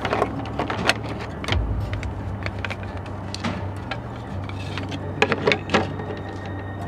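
A knife and whetstone being handled: irregular light clicks and knocks, over quiet background music.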